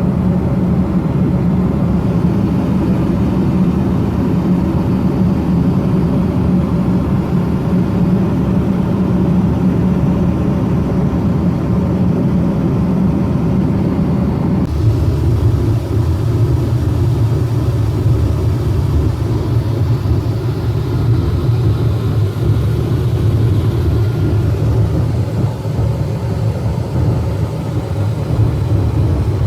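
Steady low drone of an Airbus A321 passenger cabin in flight, engine and airflow noise with no break. About halfway through the pitch of the drone drops abruptly and its character changes.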